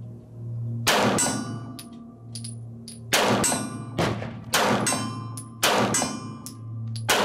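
Sig P210A 9mm pistol firing about eight shots at steel targets: one shot about a second in, then after a pause a rapid string about every half second. Each shot is followed by the clang and ring of steel plates being hit.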